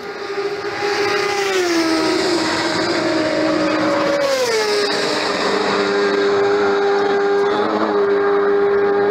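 Racing motorcycle engines at high revs going past at speed, the engine note falling twice as machines go by, then holding a steady high pitch.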